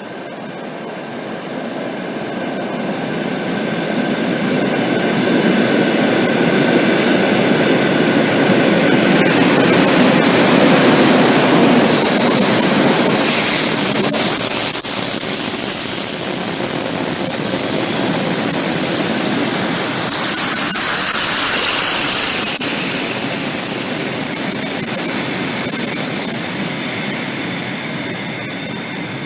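ED4M electric multiple unit approaching and going by, its rumble building steadily, then loud with high, steady wheel squeal while it is closest; the noise drops away suddenly near the end.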